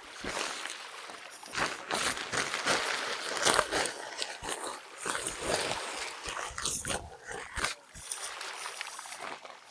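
Water splashing in irregular bursts, as with someone moving about in a stream or under a waterfall.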